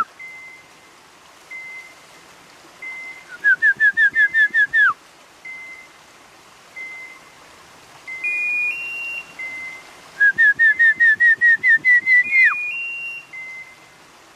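Electronic beeper collars on woodcock-hunting dogs: a short single beep repeats about every second and a quarter, and twice a fast run of rising chirps ending in a falling sweep sounds out, the kind of signal a beeper collar gives when the dog stands still on point. A higher two-step beep sounds twice, near the middle and near the end.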